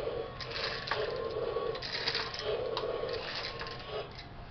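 Battery-powered walking toy T-Rex's gear motor clicking and grinding as it walks on a tile floor, in repeated bursts with each step, stopping about four seconds in.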